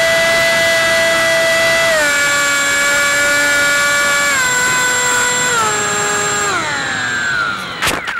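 Whine of an RC plane's electric motor heard through its onboard camera, steady and then dropping in pitch in several steps as the throttle is pulled back, sliding down fast near the end before a few sharp knocks as it comes down.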